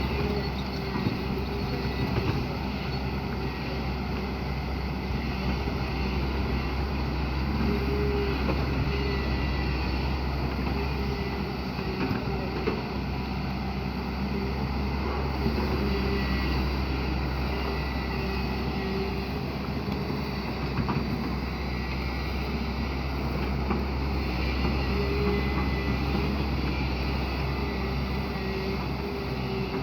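Hyundai excavator's diesel engine running steadily, with a higher whine that comes and goes.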